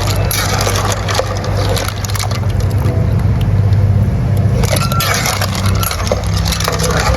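Clams in their shells being stirred in a pot of boiling water, the shells clattering and clicking against each other and the pot as they are cooked until they open, over a steady low hum.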